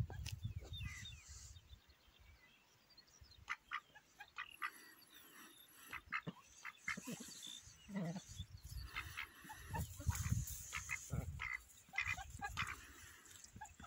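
Campbell ducks foraging in grass: many short clicks of bills pecking and dabbling at the ground, with the odd soft low call, one sliding upward about two-thirds of the way through. Gusts of wind rumble on the microphone near the start and again later.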